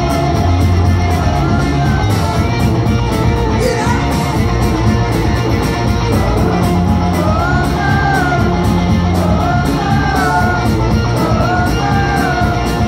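Live rock band playing loudly, with a steady drum beat, bass, electric guitars and a rising and falling sung melody line, heard from within the audience.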